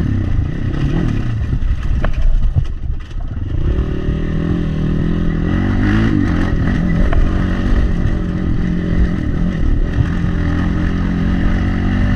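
Crossfire 250 motorcycle engine running as the bike pulls away, the revs climbing about three and a half seconds in and then holding under load, with some clatter and scraping.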